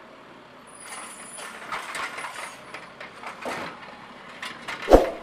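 Automated side-loader garbage truck working its mechanical arm to lift a wheeled bin: engine and hydraulic mechanism noise, with one sharp clank near the end.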